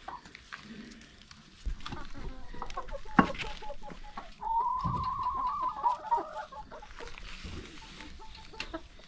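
A flock of domestic hens clucking, with one hen giving a drawn-out, wavering call lasting about two seconds around the middle. A single sharp knock comes about a third of the way in.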